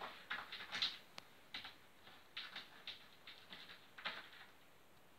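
Tabby cat pawing and scratching at a small white object on a wooden furniture top: an irregular run of short, scratchy rustles.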